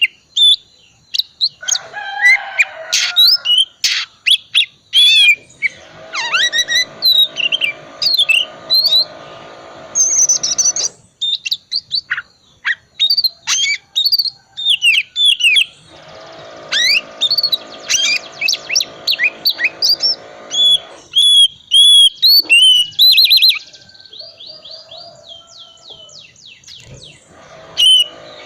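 Oriental magpie-robin (kacer) singing a fast, varied song of whistles, chirps and trills, full of mimicked calls ('isian'). Twice a steady buzz runs beneath it for several seconds.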